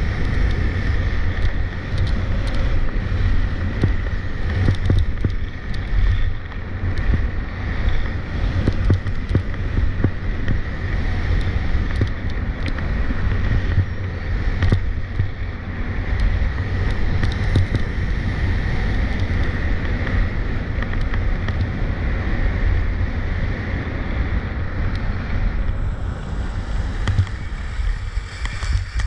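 Skis scraping and hissing over hard, icy snow on a fast downhill run, under heavy wind buffeting on the microphone.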